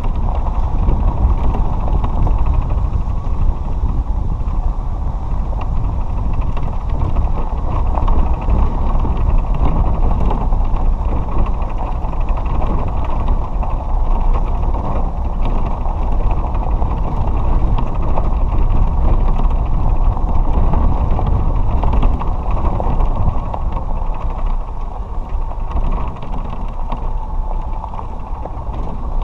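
Small cart driving steadily along a gravel road: a continuous running noise with tyre rumble over the gravel.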